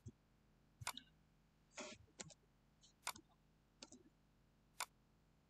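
Faint computer mouse clicks: quick double-clicks, a close pair of sharp clicks about once a second, ending in a single click.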